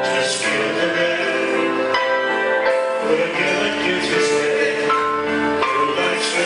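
Music: a band playing a song, with a man singing over sustained instrument notes.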